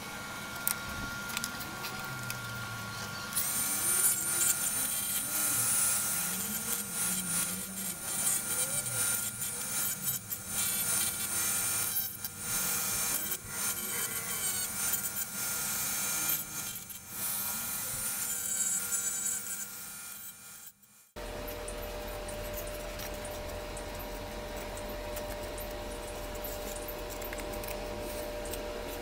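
Dremel rotary tool running at high speed, grinding into plywood to lengthen a slot: a high whine with gritty scraping that rises and falls as the bit bites. It starts about three seconds in and stops about twenty seconds in. A steady low hum follows.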